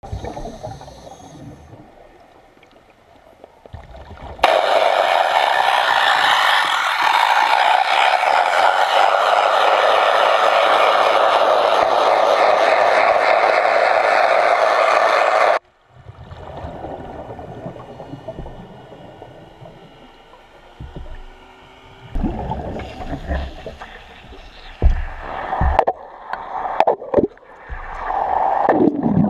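Underwater sound from a diver's camera: a long, even rush of air bubbles that starts and stops abruptly, then quieter bubbling broken by several sharp knocks against steel.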